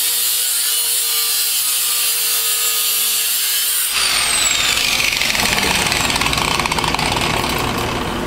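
Angle grinder with a cut-off wheel cutting steel exhaust pipe: a steady, high, hissing grind with a held whine. About four seconds in the cut ends abruptly, and the grinder's whine slides down in pitch as the disc spins down, over a louder rough clatter.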